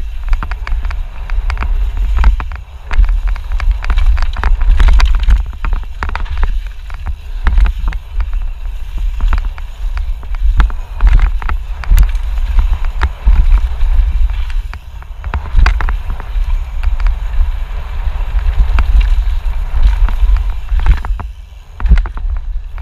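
Mountain bike running fast down a dry dirt downhill trail: wind buffets the microphone in a constant low rumble, over tyre noise on the loose dirt and frequent sharp rattles and knocks as the bike hits bumps.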